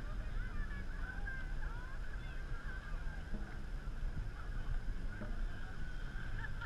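Many distant voices of a large crowd cheering and calling out at once, blending into a continuous chorus of high shouts, over a low wind rumble on the microphone.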